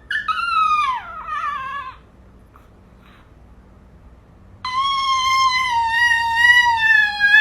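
Dog howling on request: a short call falling in pitch, then after a pause a long, held howl that starts about four and a half seconds in and wavers slightly.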